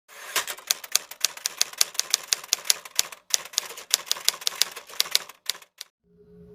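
Rapid typewriter-like key clacking, a quick irregular run of sharp clicks over a light hiss that stops near the end. A low held tone, like a singing bowl, starts just before the end.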